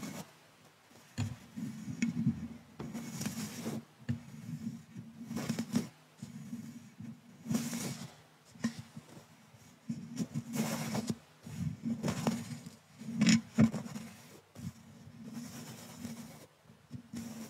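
Thin paintbrush stroked across a microphone's mesh grille: about a dozen short, scratchy swishes at an uneven pace, some louder than others.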